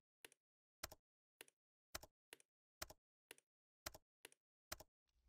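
Faint computer mouse clicks and keyboard key presses, about a dozen sharp clicks spaced roughly half a second apart, with silence between.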